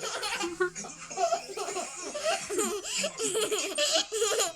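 Children laughing and giggling, high-pitched and excited, with bursts of playful squealing.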